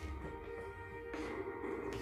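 Music from a Philips LED TV's built-in speakers, with steady held tones.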